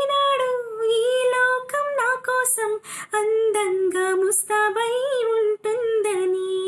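A female voice singing solo and unaccompanied, holding long high notes with small ornamental glides, broken by brief pauses for breath.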